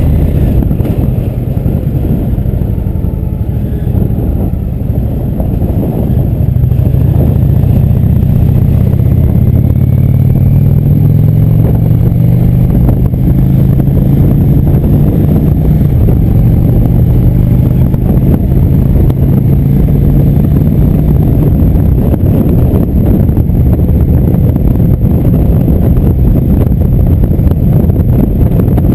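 Indian motorcycle's V-twin engine running at road speed, with wind and road noise. The engine note climbs about a quarter of the way in, then holds steady.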